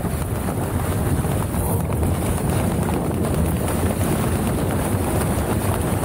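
Strong wind buffeting the microphone in a steady low rumble, over the rush of water along a sailing dinghy's hull.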